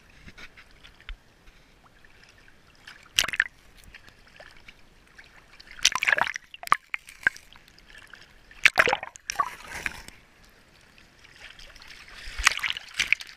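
Stream water sloshing and splashing in about four short bursts against a waterproof action camera as it dips under the surface of a shallow stream and comes back up, with a low trickle between the bursts.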